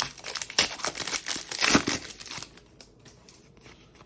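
Plastic wrapping of a trading-card pack crinkling and tearing as it is ripped open, stopping about two and a half seconds in.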